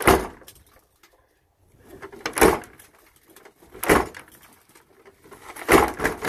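Four loud bangs as a car door and its side window are shoved hard by hand, about one and a half to two seconds apart.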